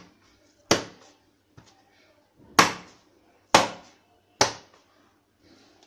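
About four sharp knocks, irregularly spaced, as a hand strikes an upturned container on a plate to loosen the set kalakand so it drops out.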